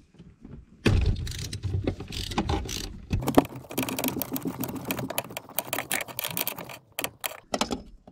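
3/8-inch ratchet driving a long extension, swivel and deep 12 mm socket, clicking in quick strokes as it works a brake booster mounting nut loose behind the pedal bracket. The clicking starts about a second in and breaks off briefly a few times near the end.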